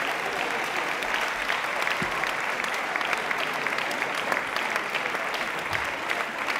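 Audience applauding steadily: many hands clapping in a hall.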